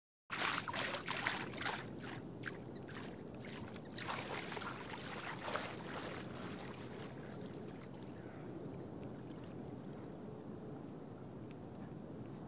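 Lake water splashing and lapping in irregular strokes, busiest in the first two seconds and again around four to six seconds in, then settling into a steady soft wash.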